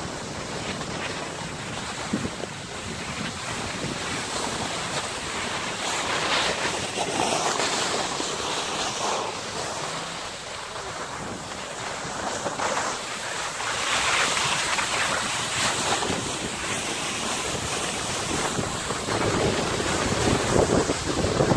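Wind buffeting the microphone and the hiss of skis sliding on packed snow during a downhill run, rising and falling in surges and growing louder near the end.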